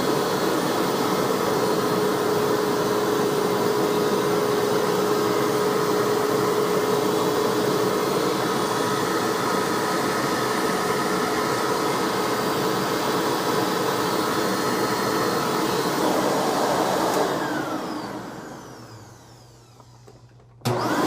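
Hoover WindTunnel self-propelled upright vacuum running steadily, a motor hum with a clear tone. About 17 seconds in it is switched off and winds down over a few seconds, falling in pitch. It is switched back on, starting suddenly, just before the end.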